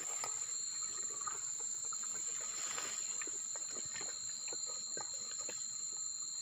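Insects chirring steadily in two high, unbroken tones, with light rustling and small clicks as a plastic bottle eel trap is worked into shallow, weedy water.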